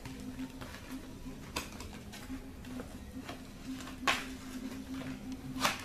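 Cardboard box flaps and packing tape being handled and pulled open: scattered crinkles and scrapes, with sharper rips about a second and a half in, about four seconds in and near the end. A steady low hum runs underneath.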